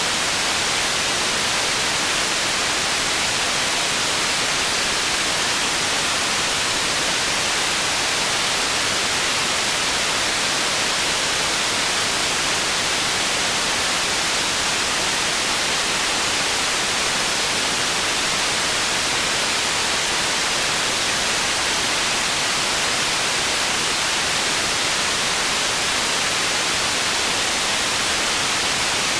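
Processed white noise for tinnitus masking: a steady, unchanging hiss, strongest in the high treble with little bass.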